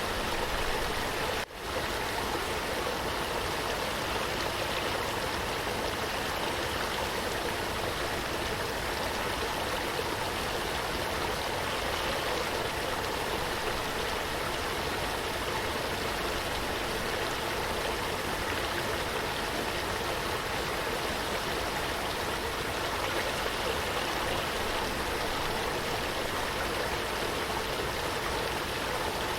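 Running water flowing steadily, an even rushing wash with no change, except for a brief dropout about a second and a half in.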